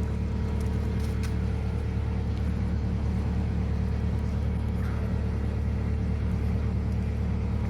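Sawmill engine running steadily with a constant low drone.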